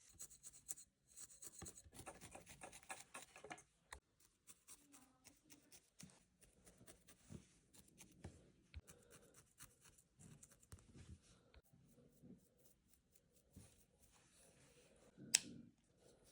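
Quiet needle-felting sounds: a felting needle poking and scratching through wool roving, with fibres rubbing. A fast, dense run of scratchy strokes over the first few seconds, then sparser soft pokes, and one sharp click near the end.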